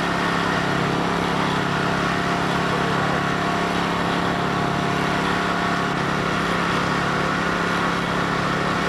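A small engine running steadily at a constant speed, an even hum that does not change.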